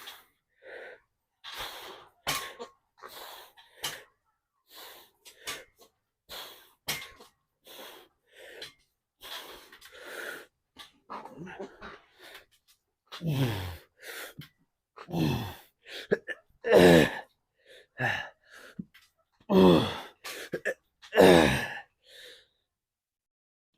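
A man breathing hard through a set of leg extensions: short sharp exhalations at first, then from about halfway on loud grunts that fall in pitch, one every second or two, as he strains through the reps.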